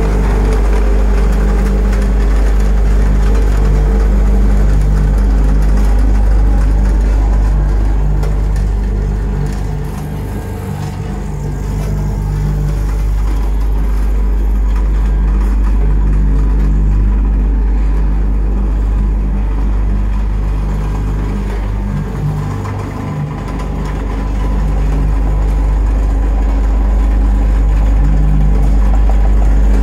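Four-cylinder diesel engine of a Hamm DV8.42 tandem roller running steadily as the roller drives, a deep low drone. It drops off briefly twice, about ten seconds and about twenty-two seconds in.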